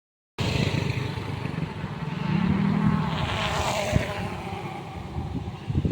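A bus's engine and tyres passing close by on a road, with the engine note rising and falling and the sound loudest about three and a half seconds in.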